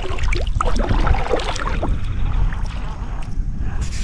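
Wind rumbling on the microphone over the splash and lap of lake water around a small fishing boat.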